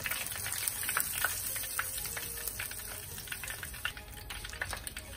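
Breaded horse mackerel deep-frying in a small saucepan of hot oil: steady sizzling with dense crackling and popping.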